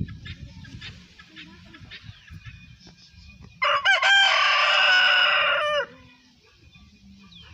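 Rooster crowing: one loud cock-a-doodle-doo lasting about two seconds, starting about halfway through.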